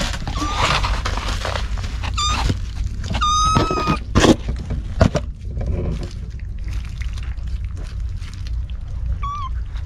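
Kittens mewing: several short, high mews, with a longer one about three and a half seconds in and another near the end, over a steady low rumble. A couple of sharp knocks and some rustling come about four to five seconds in.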